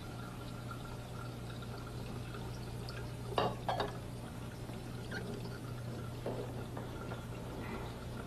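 Water running from a kitchen tap into a sink while dishes are washed, with a few light clinks of dishware about three and a half seconds in and small ticks later.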